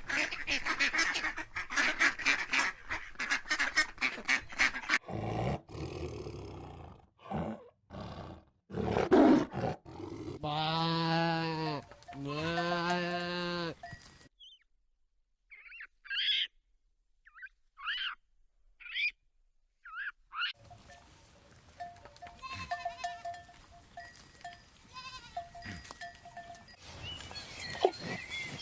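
Farm animals calling in a series of short cuts: dense clucking-like calls at first, then two long drawn-out bleats near the middle, followed by a run of short high chirps.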